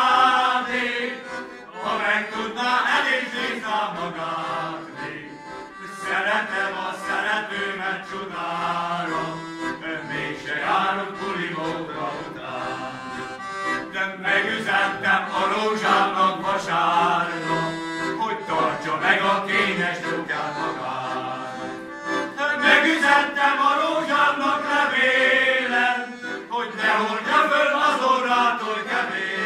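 Men's folk choir singing a Hungarian folk song to piano accordion accompaniment, with brief pauses between sung lines.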